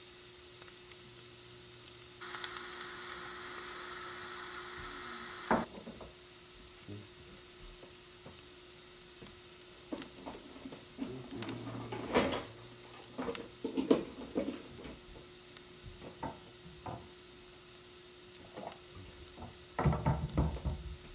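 Sliced carrots sizzling quietly in a frying pan on the stove, under a steady low hum. About two seconds in a louder hiss sets in for about three seconds and stops sharply. Later come scattered clinks and knocks of dishes and utensils being handled at a kitchen counter, heaviest near the end.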